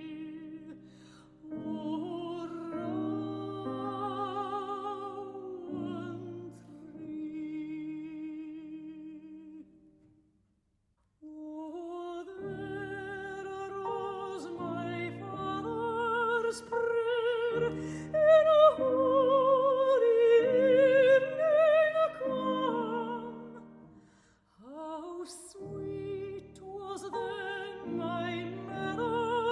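Operatic singing with a strong vibrato over sustained instrumental accompaniment. The music breaks off briefly about ten seconds in, then resumes and swells.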